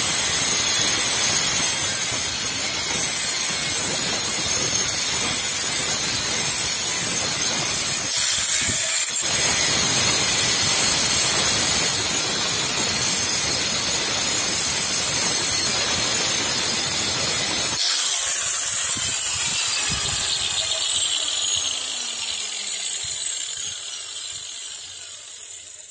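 Angle grinder with a diamond cutting disc cutting through aluminium, a loud steady grinding noise with a short break about eight seconds in. About eighteen seconds in the cut ends and the grinder runs on, its pitch falling and the sound fading near the end.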